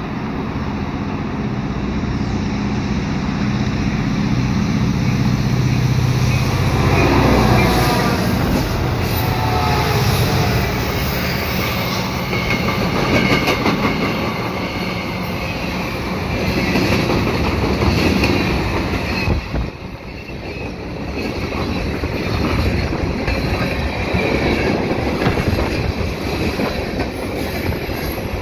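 Freight train passing, led by a GP38-2 and two SD70MAC diesel-electric locomotives. The engines' low drone builds to its loudest about seven seconds in and drops in pitch as they go by. The long rolling rumble of the freight cars follows, with uneven swells and clacking wheels.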